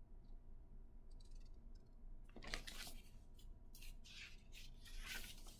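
Faint rustling and scraping of a paper picture book being handled, several brief brushes of hands on the pages in the second half, over a low steady room hum.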